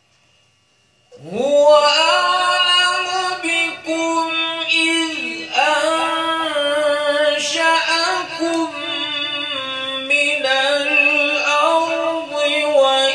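A man reciting the Quran in the slow, melodic tajweed style, drawing out long ornamented notes with short breaths between phrases; it starts about a second in.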